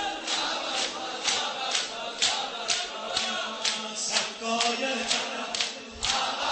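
Sineh-zani mourning: a crowd of men slapping their bare chests in unison, about two slaps a second, over a group chant.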